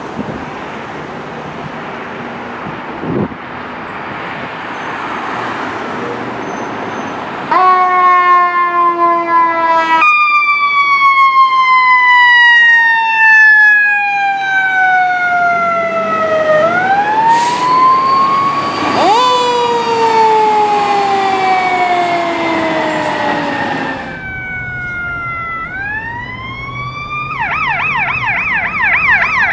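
LA County fire engine and rescue squad leaving on a call. Vehicle and road noise at first, then emergency sirens come on about a quarter of the way in. The sirens wail in long slow sweeps, each falling for several seconds after a quicker rise, and near the end they switch to a fast yelp.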